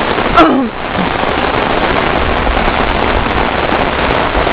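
Heavy rain falling steadily, hitting an umbrella held overhead. A short voice sound comes about half a second in.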